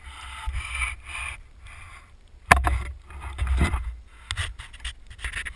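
Handling noise from a waterproof action-camera housing held in the hand: irregular rubbing and scraping on the case, with a sharp knock about two and a half seconds in and a few smaller knocks later.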